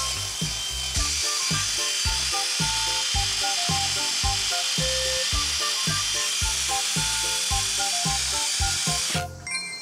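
A cordless drill spinning a small wire brush against rusty steel bicycle parts, a steady scratching whir that stops suddenly near the end. Background music with a steady beat plays along.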